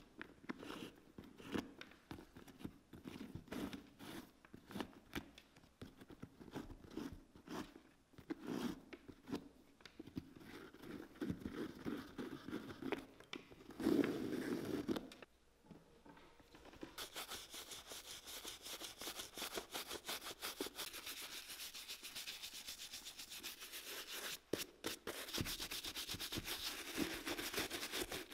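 Boot laces being pulled out through the metal eyelets of a leather work boot: irregular short rubbing and scraping strokes, one louder about halfway through. After a brief pause comes a steadier, fast scratching that runs on to the end.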